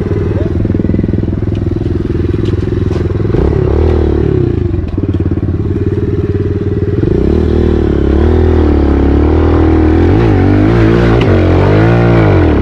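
Four-stroke single-cylinder dirt bike engine close by, running at a steady idle, then revved briefly about three and a half seconds in. From about halfway on, the throttle is blipped repeatedly, the engine rising and falling in pitch.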